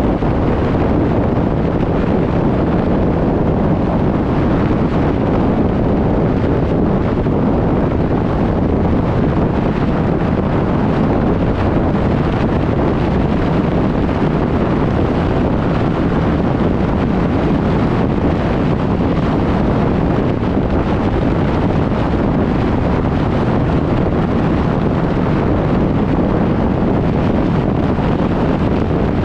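Steady wind rush buffeting a camera mounted on a fire engine's front bumper at highway speed, mixed with the truck's tyre and road noise.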